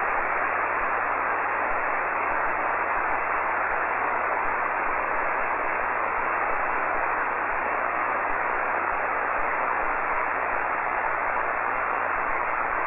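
Shortwave radio receiver hiss: steady band noise on the 40-metre amateur band, cut off above the voice range, with no station transmitting. It is an open, unoccupied frequency while the operator listens for any reply.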